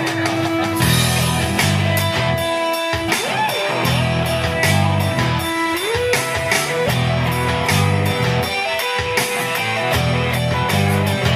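Live rock band playing an instrumental break: a guitar holding and sliding between notes over a repeating bass line and drums with frequent cymbal strokes.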